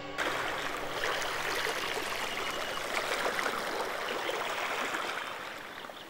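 Running water of a stream, a steady rushing that starts abruptly and fades slowly over the last two seconds.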